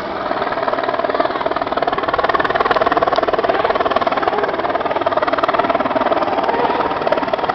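Loud, steady motor noise with a fast, even pulsing, growing louder about a second and a half in and easing slightly near the end.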